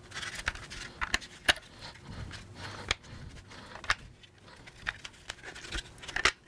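Irregular plastic clicks and knocks as hands push out the small clips holding a trim piece on a Can-Am Spyder F3 dashboard console, with soft handling noise between them.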